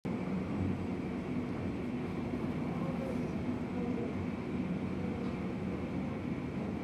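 Steady low rumble and hum of an airport gate: a parked jet airliner and the ground machinery around it, with a jet bridge driving up to the aircraft.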